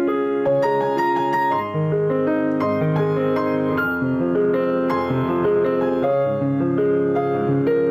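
Piano music playing a melody of held notes that follow one another steadily.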